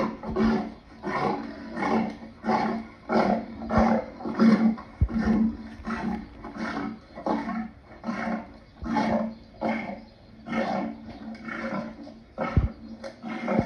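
Lion calling in a long, even series of short grunting roars, about two a second.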